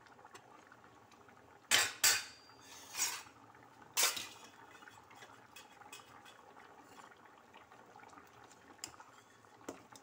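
Steel ladle clinking and scraping against a stainless steel pan while stirring a thick stew, with a few sharp clinks about two to four seconds in, then quieter stirring.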